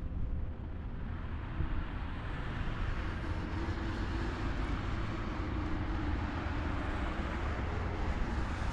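Street traffic: a steady rush of passing vehicles and tyre noise, filling in about two seconds in.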